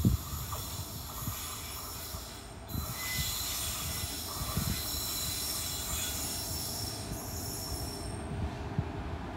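Indian Railways express train running through a station at speed: the wheels squeal on the rails in several steady high-pitched tones over a constant rumble and the knocks of wheels on rail joints. The squeal dies away about eight seconds in.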